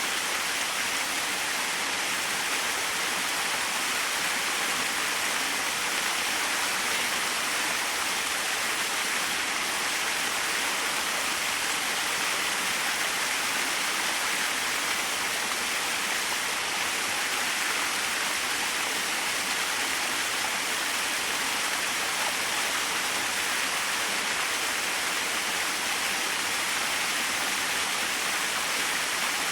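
Small waterfall splashing: a steady, even rush of falling water.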